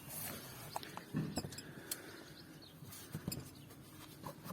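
Scattered light clicks and knocks of a motorcycle front wheel being handled and lined up between the forks.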